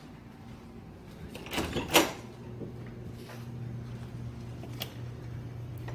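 Case fans of a newly built desktop PC running with a steady low hum, which the builder calls a loud fan. A few clicks and knocks come about one and a half to two seconds in, with fainter ones later.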